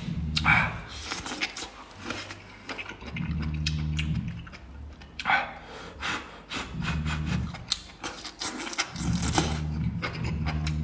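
A person eating rolls of tofu skin with enoki mushrooms: two long slurps, about half a second and five seconds in, with wet chewing clicks and several low, closed-mouth hums between bites.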